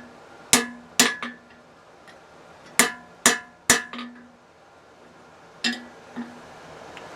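Hammer blows on hot steel over an anvil, each strike leaving the anvil ringing. About seven blows come in groups: two, then three, then two. The smith is hammering a bend into the holdfast bar.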